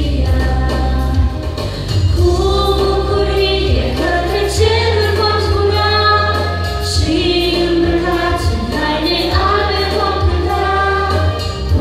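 A woman sings a Romanian Christian song in long held notes through a microphone and the hall's loudspeaker, over an accompaniment with steady bass notes.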